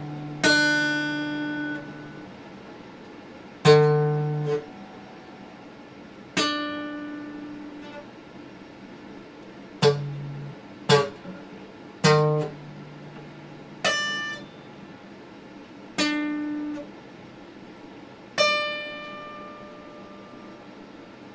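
Acoustic guitar strummed one chord at a time, about nine separate strums a second or more apart, each left to ring and die away, a few stopped short by the hand.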